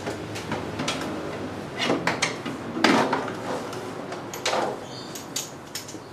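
Hand tools being handled and used on metal: irregular clicks and clinks, with a few short scraping, rattling strokes.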